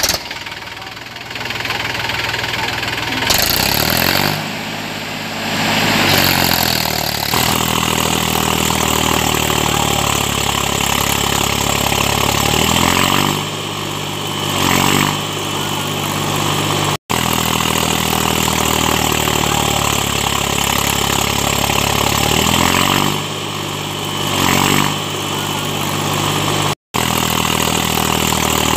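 Small engine of a homemade mini tractor running steadily as it pulls a fully loaded trolley, its engine speed dropping and picking back up a few times.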